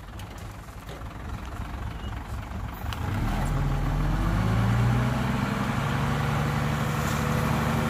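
A dump truck's diesel engine running. It grows louder about three seconds in and then runs steadily.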